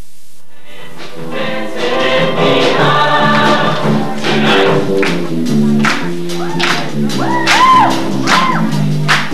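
A choir of many voices singing an upbeat song over a band with a steady percussion beat, starting about a second in after a low steady hum.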